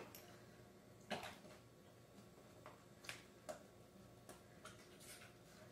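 Near silence with a few faint, irregular ticks and taps as a cream carton is handled and emptied over a plastic mixing bowl.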